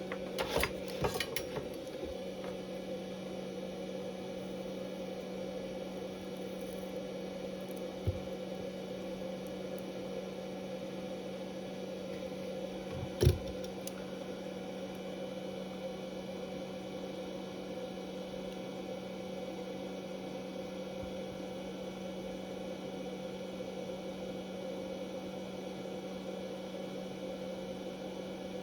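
A steady low electrical hum, with a few light clicks in the first second and a single sharp knock about thirteen seconds in, as small parts and tools are handled on the bench.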